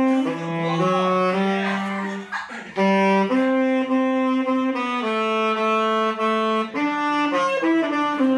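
Saxophone played solo: a slow melody of long held notes, with a short break for breath about two and a half seconds in.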